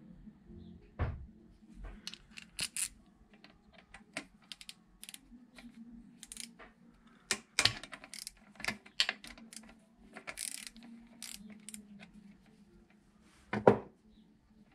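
Hand tools and small metal parts clinking and clattering as they are handled, in many short irregular clicks, with a louder knock near the end.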